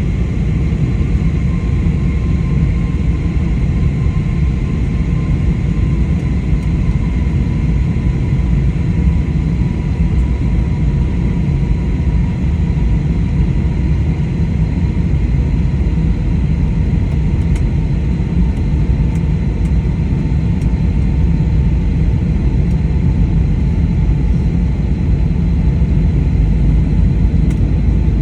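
Steady, loud low rumble of a moving vehicle's engine, with a faint whine that slowly falls in pitch.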